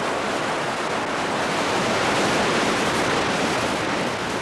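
Water rushing through the sluice gates of a river barrage: a steady, loud rush that swells slightly midway.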